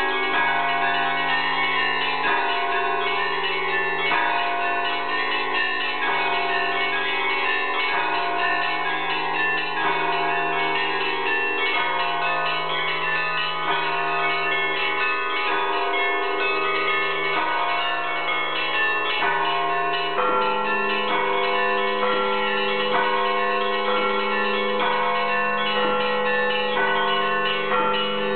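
Russian Orthodox church bells rung by hand from ropes to their clappers: several fixed bells, small and large, struck in a continuous rhythmic pattern, their tones ringing on and overlapping. About two-thirds of the way through, a new low bell tone joins and holds.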